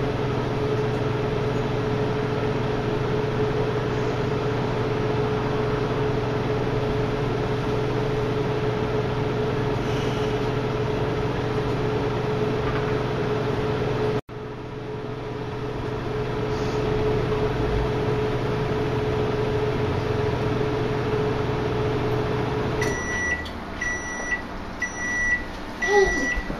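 Microwave oven running with a steady hum while heating a mug of chocolate cake batter; near the end the hum stops and the oven gives several short high beeps, signalling the end of the cooking cycle.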